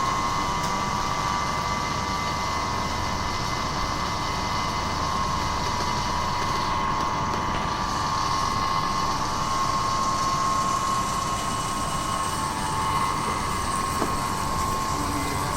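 Flameproof air conditioner running: a steady mechanical hum and rush with a steady whine.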